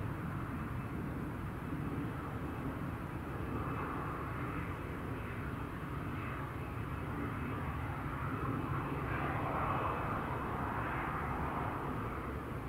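Boeing 737 jet engines (CFM56 turbofans) running steadily. The engine noise swells somewhat past the middle and eases off near the end.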